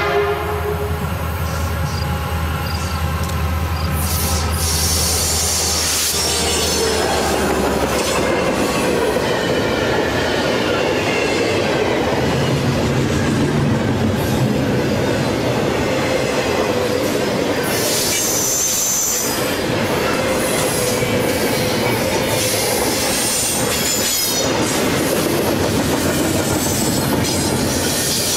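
Double-stack container freight train passing close by. A diesel locomotive horn cuts off about half a second in, and the locomotives' low engine rumble fades over the first several seconds. After that come the steady rumble and clatter of the stack cars' wheels on the rails, with squealing wheels that peak about two-thirds of the way through.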